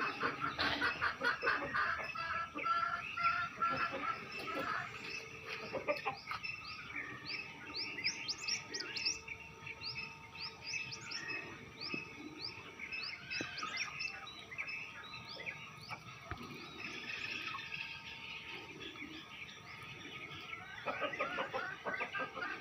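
Birds calling: a run of quick, repeated rising chirps in the middle, with clucking-like calls near the start and end.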